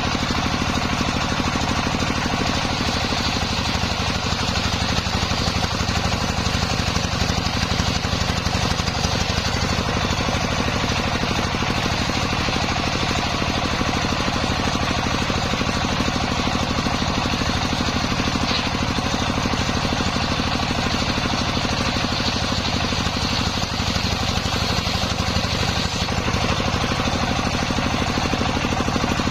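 Homemade circular saw running steadily while ripping wadang timber, its drive throbbing underneath. A higher whine from the blade comes and goes, strongest for a few seconds at a time.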